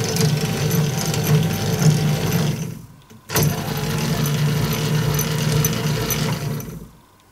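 Old car windscreen-wiper DC motor driving a lathe's lead screw through a train of spur gears, with a steady mechanical hum and a whine that rises as it starts. It runs twice, for about three seconds each time, with a short pause between, and slows to a stop near the end of each run.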